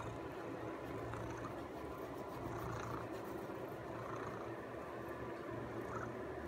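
Persian cat purring steadily while being scratched under the chin, a low, even rumble.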